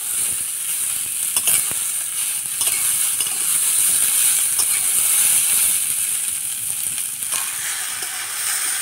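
Yard-long beans and onion sizzling in hot oil in a metal wok (kadai) while a metal spatula stirs them, with a few sharp clicks of the spatula against the pan over a steady frying hiss.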